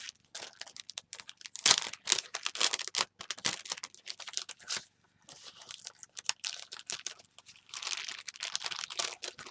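Paper wrapping being handled and unwrapped, crinkling and rustling in irregular crackles, with a short lull about five seconds in.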